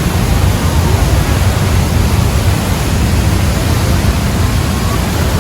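Loud, steady roar of the Rhine Falls, a large waterfall, heard close up.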